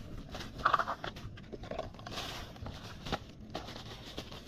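Plastic trash bag and foil balloon wrappers rustling and crinkling as a gloved hand rummages through them, with irregular small crackles.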